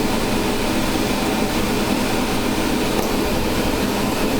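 Delta Elite multi-jet hand torch burning with a steady rushing noise as it heats glass on a lathe.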